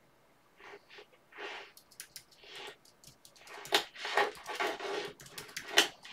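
Typing on a computer keyboard: an irregular run of sharp key clicks starting about half a second in, mixed with the typist's breath sounds close to the microphone.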